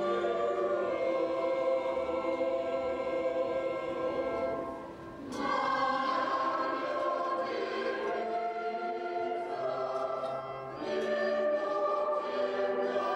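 A choir sings a slow Catholic liturgical hymn in long held chords, with a short pause between phrases about five seconds in and another just before eleven seconds.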